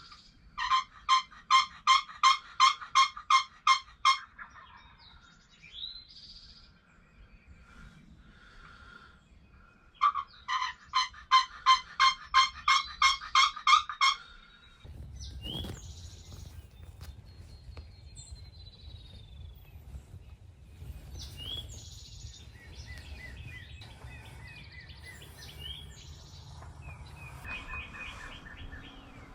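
Two runs of loud, rapid turkey yelps, about three or four notes a second, each lasting three to four seconds. After that, small birds chirp over a low rumble.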